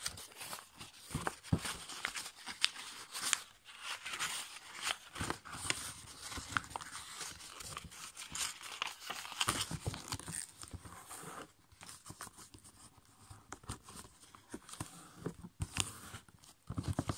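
A sheet of red A5 copy paper being folded and creased by hand: irregular crackling and rustling, with sharp crinkles as the folds are pressed flat. It goes quieter for a couple of seconds past the middle.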